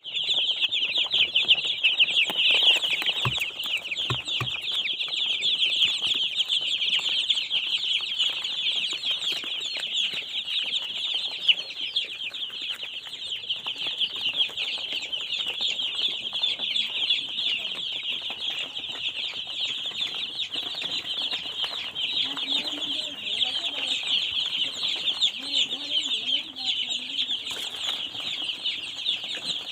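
A flock of three-day-old broiler chicks peeping all at once, a dense, continuous high-pitched chorus.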